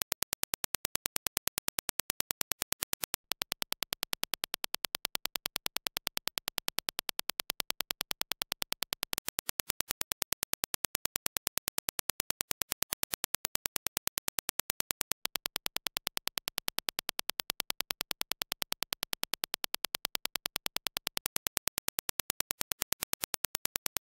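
Reference Dirac impulse test signal: a rapid, even train of sharp clicks, several a second, with a brief break twice.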